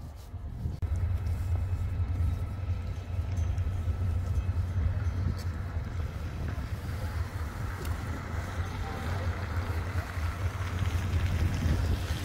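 Wind buffeting the phone's microphone: a steady low rumble that starts about a second in and keeps going.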